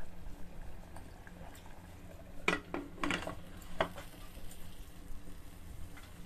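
Rice and toor dal boiling in an open aluminium pressure cooker, then a few sharp metal clanks between about two and a half and four seconds in as the lid is set on and closed.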